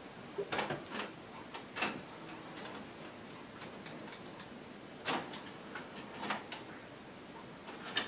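Pioneer CT-M6R six-cassette changer's tape transport clicking and clunking as it switches from play to fast-winding and back. A handful of scattered clicks over faint tape hiss.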